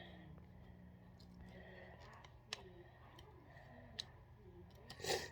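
Plastic twist-snake fidget puzzle clicking faintly as its segments are turned, with a few sharper single clicks and a louder short clatter near the end.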